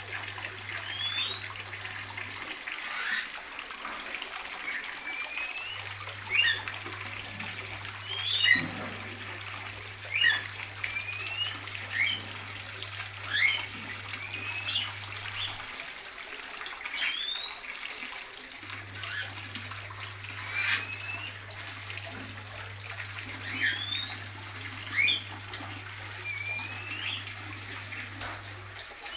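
Several birds in an aviary calling over and over with short, sharp chirps that sweep up or down, about one every second, over a steady hiss. A low hum runs in three stretches, stopping briefly a couple of seconds in and again about halfway.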